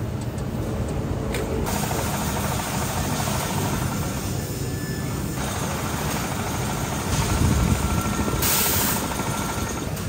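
Steady running of shoe-repair workshop machinery, a belt-driven grinding wheel working the edge of a leather boot, with a short hiss about eight seconds in.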